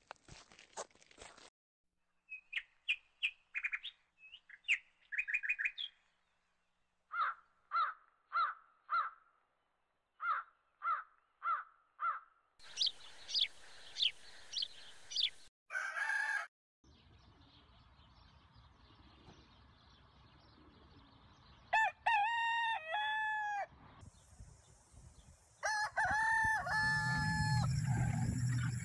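Rooster crowing twice in the last third. Before that, birds chirp and call in short repeated series.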